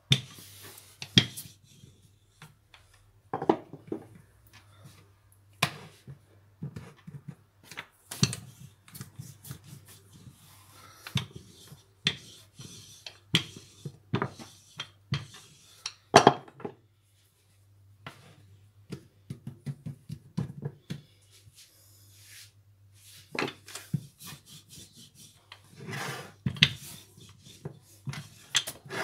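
Wooden rolling pin rolling out a sheet of stiff dough on a round wooden board, with irregular wooden knocks and clacks as the pin and board bump, and a soft rubbing between them. A steady low hum sits underneath.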